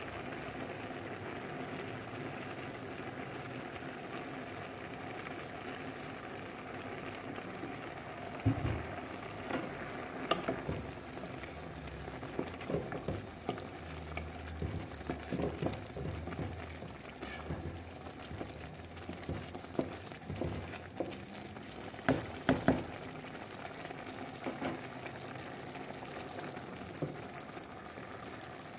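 Pot of rice boiling in water, a steady bubbling sizzle. From about a third of the way in, a wooden spoon stirring the rice knocks and scrapes against the pot, with the sharpest knocks near the start and in the last third.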